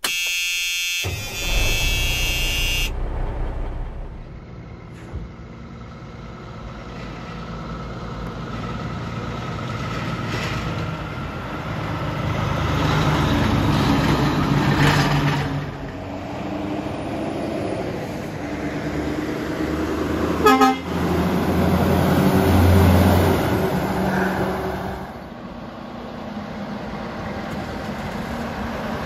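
Unladen log trucks driving past one after another, their diesel engines and tyres swelling and fading with each pass. A short, sharp, loud sound comes about two-thirds of the way through. A brief pitched intro sound opens the clip.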